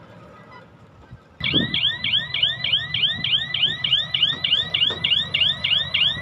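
Loaded dump truck reversing: its back-up alarm warbles in quick repeated pitch sweeps, about four a second, over the diesel engine's low rumble. The alarm comes in suddenly about a second and a half in.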